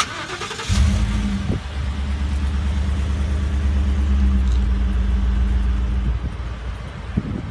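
The 5.0-litre V8 of a 2015 Ford F-150 starting by remote start and catching under a second in. It settles into a steady, deep exhaust rumble at a raised start-up idle, which eases down a little about six seconds in.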